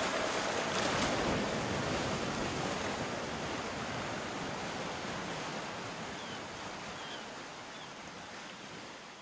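Ocean surf washing on a shore, a steady rushing noise that slowly fades out.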